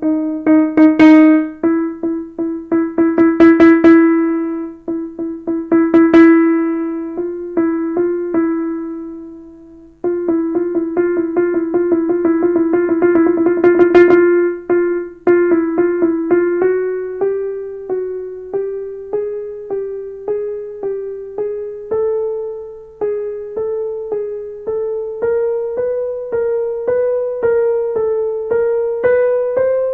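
Kurzweil KA90 digital piano playing single notes. One note is struck repeatedly and then left to fade for several seconds. About ten seconds in, the same note is played in fast repeats that grow louder, and then single notes climb slowly step by step, about two a second.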